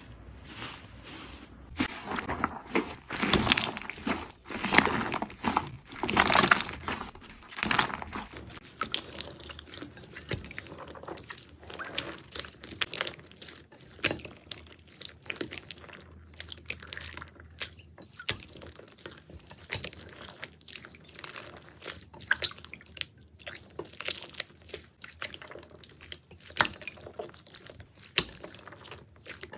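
Jelly slime being handled by hand: wet squishing and sticky popping. A few louder squelching presses come in the first third, then a run of quieter, quick crackling clicks.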